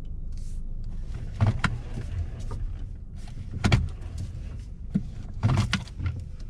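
Car cabin noise while driving slowly: a steady low rumble, broken by a few short knocks or thumps about two seconds apart.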